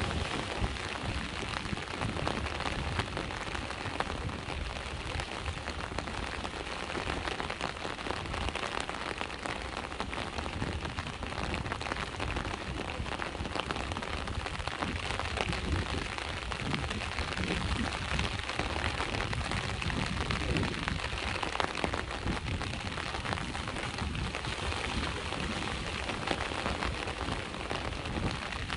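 Steady rain falling, a dense patter of drops, over a low rumble.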